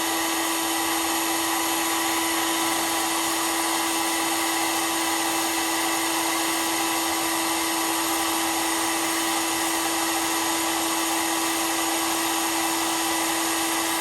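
Heat gun blowing steadily, its fan motor giving a constant-pitched hum over the rush of air, heating the seized steering joint to free it.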